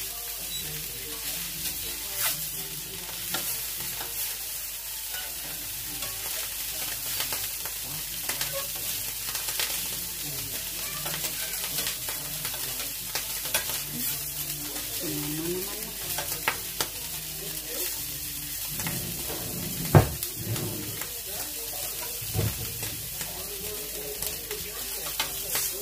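Whole mackerel sizzling in a hot Saladmaster grill pan, with a metal spatula and tongs clicking and scraping against the pan as the fish are turned. There is one louder knock about twenty seconds in.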